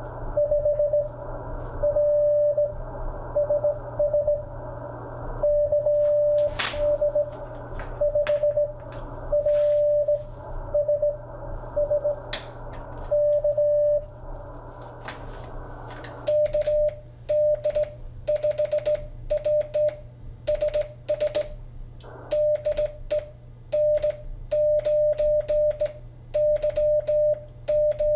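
Morse code (CW) beeps from an Icom IC-7300 transceiver, one steady mid-pitched tone keyed on and off. For the first sixteen seconds it is an incoming signal heard through the receiver's band of hiss. After that it is the operator's own hand-sent code on a straight key: clean sidetone beeps, each with the sharp click of the key's contacts.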